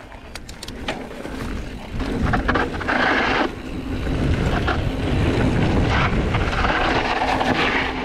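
Mountain bike descending fast on dry dirt singletrack: wind rushing over the microphone, with knobby tyres rolling and crunching over dirt and loose stones and a few clicks and rattles from the bike. The rushing grows louder about two seconds in as speed builds.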